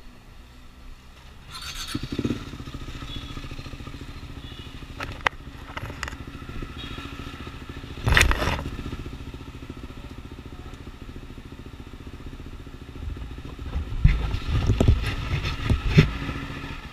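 KTM motorcycle engine idling steadily, with short louder bursts about eight seconds in and again a few times near the end.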